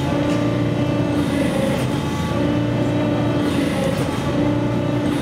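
Power hammer pounding a red-hot steel bar through a ball-shaped top tool: a fast, unbroken run of blows over a steady mechanical hum from the machine.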